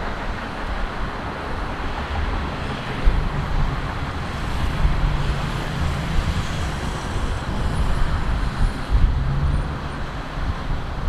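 Jet airliner engines running, a steady roar with an uneven low rumble underneath.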